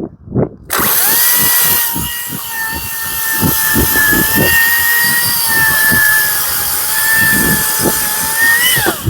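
A Makita XCU04PT1 36V (18V×2) brushless cordless chainsaw starts up just under a second in, after a couple of knocks. It runs with a steady electric whine while cutting through a log, dipping slightly under load in the middle. It stops suddenly just before the end.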